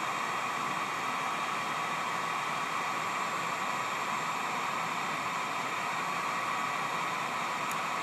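Electric heat gun running on a high setting: a steady rush of blown air with a faint even whine. It is heating a solder-seal butt connector, shrinking its tube down onto the wire before the solder melts.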